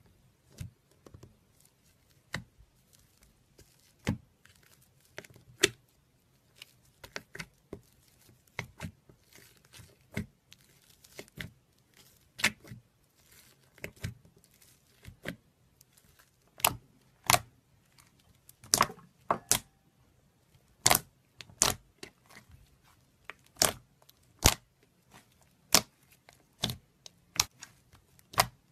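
Thick slime being squished, pulled and kneaded by hand, giving a run of irregular sharp wet pops and clicks. They come more often and louder in the second half.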